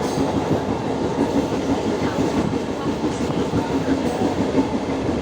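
Indian passenger train running along the track, heard from inside a carriage with its doors left open: steady wheel-on-rail running noise with clickety-clack and a low steady hum.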